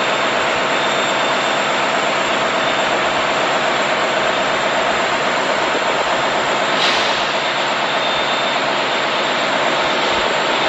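A vehicle running close by: a loud, steady noise with a faint steady tone in it, building up just before and then holding level.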